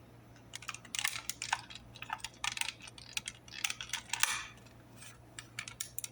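Irregular plastic clicks and scrapes of a reset key being worked in a GENT Vigilon manual call point, returning the pushed-in call point to normal.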